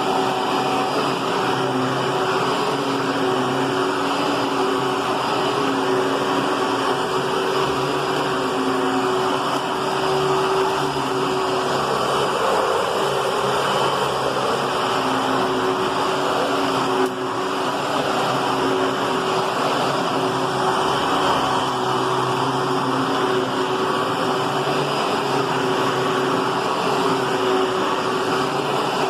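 Hoover Twin Chamber bagless upright vacuum cleaner running steadily, an even motor hum and whine, with a brief dip about halfway through.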